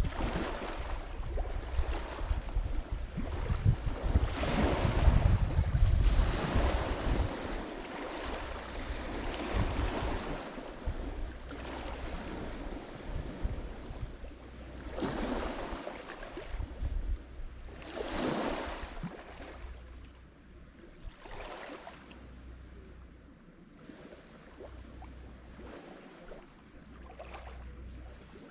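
Lake Michigan waves breaking and washing onto the shore, coming in several swelling surges. The loudest are in the first ten seconds, with a low rumble under them, and they ease to a quieter wash near the end.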